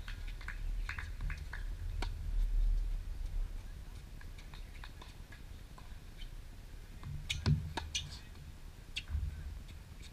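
Tennis rally on a hard court: tennis balls struck by rackets and bouncing, with sharp knocks and the players' footsteps. The loudest strikes come about seven and a half seconds in, as the near player hits a forehand, over a low rumble.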